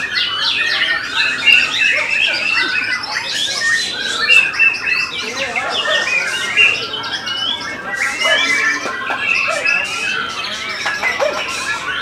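Several white-rumped shamas singing at once, a dense, unbroken chorus of loud, rapid whistles, trills and chattering phrases.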